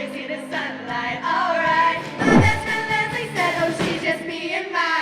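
A group of women singing a pop song with music, with a swooping drop in pitch a little after two seconds in.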